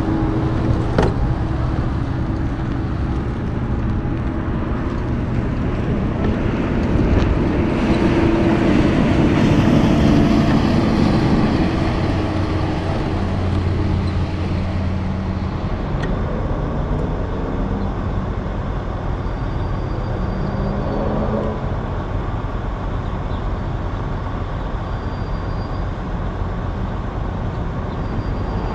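Highway traffic going by: tyre and engine noise from passing cars, pickups and a tractor-trailer, swelling to its loudest about ten seconds in and then easing off.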